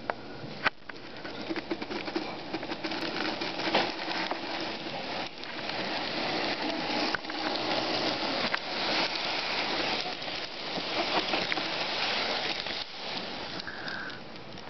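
HO-scale Athearn diesel locomotive model running on its track: a dense rattle of small wheel clicks over the rails with a faint motor hum, louder in the middle as the train passes close.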